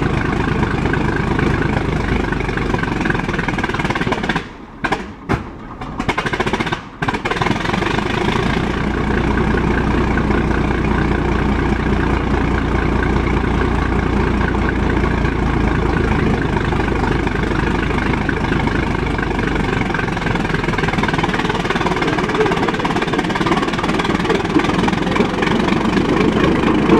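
Engine of a 1917 Holt 120 crawler tractor running steadily. The sound cuts out briefly a few times about five to seven seconds in.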